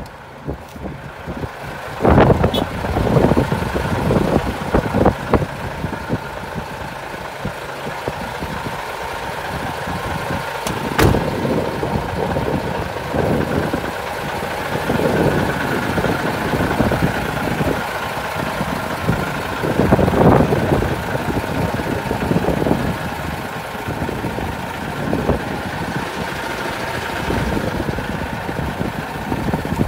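Hino Profia heavy truck's diesel engine idling steadily, with a sharp knock around the middle and rustling handling noise over it. The sound comes up sharply about two seconds in.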